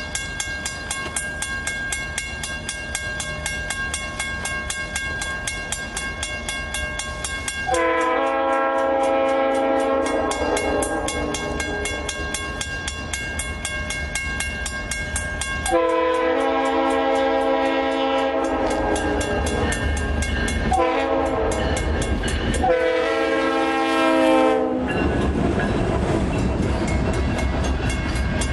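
Approaching train locomotive's air horn sounding the grade-crossing signal: two long blasts, a short one and a final long one. After the horn, the low rumble of the train grows as it nears.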